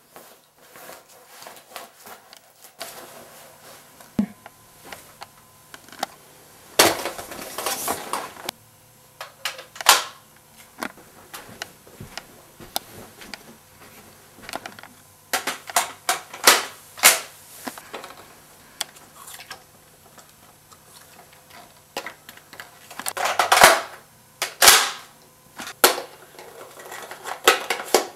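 Toy Nerf dart blasters being cocked and fired: a run of sharp plastic clacks and pops, with two longer noisy bursts.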